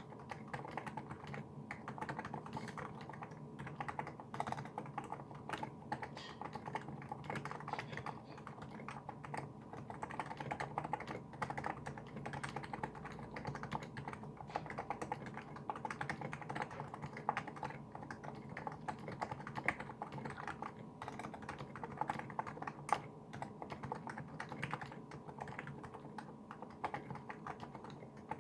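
Typing on a Niz Plum Micro84 keyboard with electro-capacitive switches and tall SA-profile keycaps: a fast, continuous run of key clacks.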